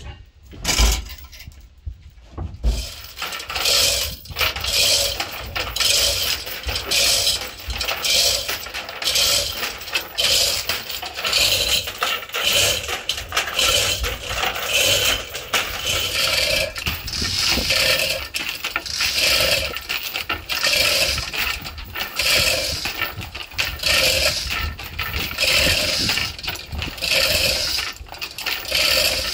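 Metal work on a seized old boat engine: continuous metallic clinking and scraping with many sharp knocks, pulsing about every second and a half. It starts a few seconds in.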